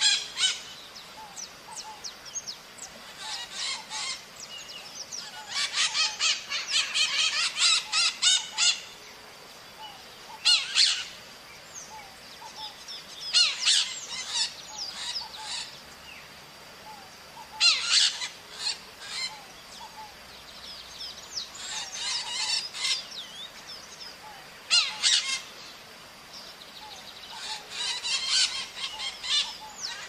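Maritacas (small Brazilian parrots) calling, several birds at once, in bouts of rapid repeated calls every few seconds with short lulls between. A faint steady high tone runs underneath.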